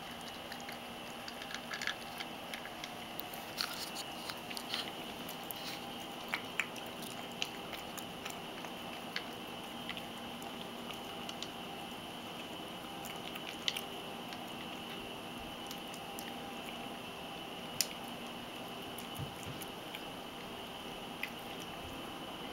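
Ragdoll cat eating dry kibble topped with wet food: scattered crisp crunches and wet chewing, more frequent in the first several seconds and sparser later. A steady faint hum runs underneath.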